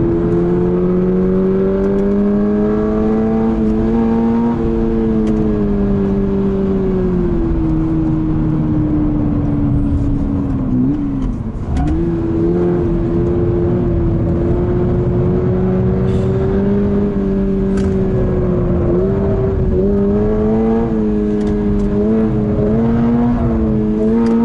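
Toyota GR86's 2.4-litre flat-four engine heard from inside the cabin under track driving, its note climbing and sagging with throttle. About eleven seconds in the pitch drops sharply and jumps back up in a gear change, and there is another shift near the nineteen-second mark.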